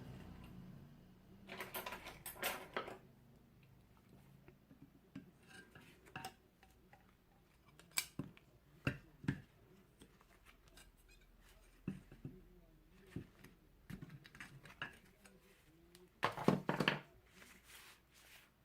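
Hand tools and small pieces of wood being handled on a work surface: scattered light clicks and knocks, with two short bursts of scraping about two seconds in and near the end.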